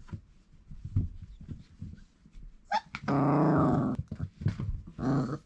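Four-week-old Irish Setter puppies vocalising: a loud, drawn-out growly howl lasting about a second, starting about three seconds in, and a shorter one near the end, over soft scuffling of paws on bedding.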